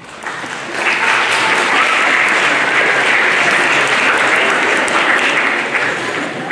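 Audience applauding, building up within the first second, holding steady and easing off near the end.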